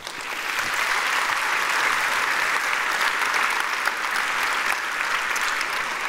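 Large audience applauding, starting suddenly and holding steady.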